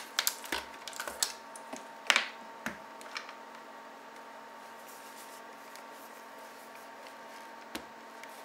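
Handling noise from an ELMO Super 8 Sound 2600AF film camera being moved and set on a table: a quick run of light clicks and knocks in the first three seconds, then only a faint steady hum, with one more click near the end.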